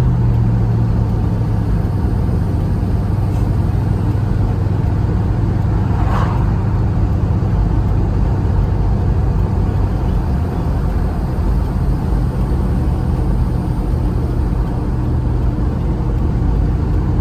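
Truck heard from inside the cab while driving: engine running with road noise in a steady low drone, the engine note easing off about ten seconds in.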